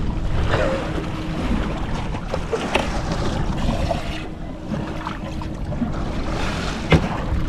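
Wind and choppy water washing around a small fishing boat, with a faint steady hum and a few small clicks. A single sharp knock near the end comes from the boat's clear live-well hatch lid being handled.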